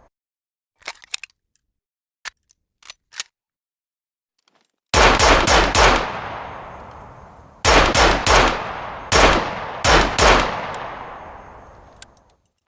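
Desert Eagle handgun sound effect: a few light metallic clicks, then loud gunshots fired rapidly in several quick strings of four or five shots, each string trailing off in a long echoing tail.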